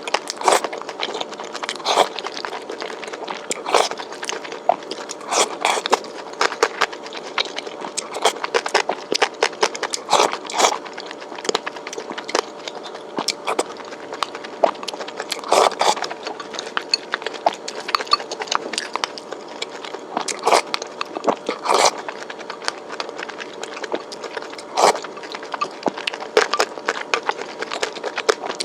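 Close-miked eating: irregular crisp crunches and clicks of food being bitten and chewed.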